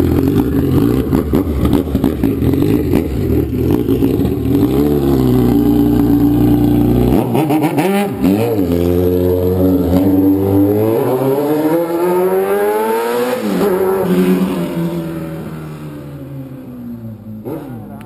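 Kawasaki Z1000 inline-four running with its exhaust baffle removed: a steady idle, then pulling away and accelerating hard with the revs climbing, a gear change, and climbing again, fading as the bike rides off up the street.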